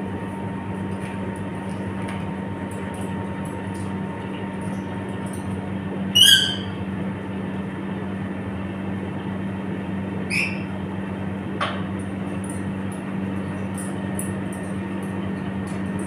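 A parrot gives a short, loud whistled call about six seconds in and a briefer call about ten seconds in, over a steady low hum. Faint clicks come from claws and beak on the wire cage.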